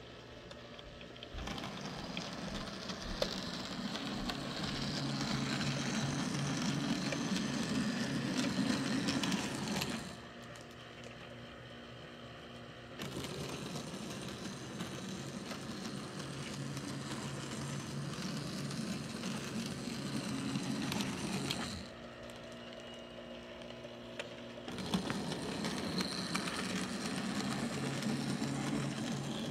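Model trains and motorized Christmas village pieces running, a steady mechanical whir and clatter. It swells for stretches of several seconds and drops back twice into shorter quieter spells where only a low steady hum remains.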